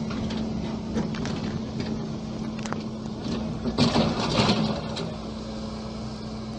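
An engine running steadily, with scattered knocks and clanks and a louder burst of clatter about four seconds in.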